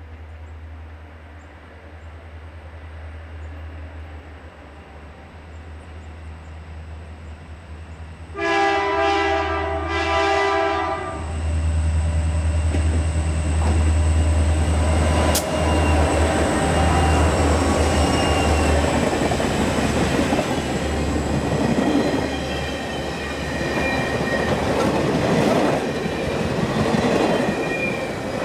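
Rocky Mountaineer passenger train's diesel locomotives coming out of a tunnel. The low engine rumble swells, and the air horn sounds for about two and a half seconds about eight seconds in. The locomotives and passenger cars then pass close by, with wheels clicking over the rails and thin wheel squeals near the end.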